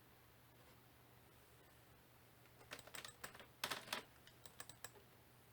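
Faint typing on a computer keyboard: a quick run of key clicks lasting about two seconds, starting around the middle.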